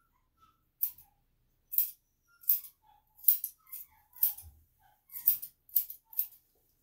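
Grooming scissors snipping through a dog's fur around its hind foot: about nine quick, sharp cuts at uneven intervals.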